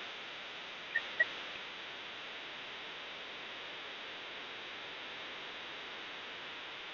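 Steady hiss with two short, sharp chirps a little after a second in, the second the louder.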